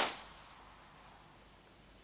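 A single sharp crack from a campfire of dry wood, loud at the very start and dying away within about half a second, then faint steady hiss.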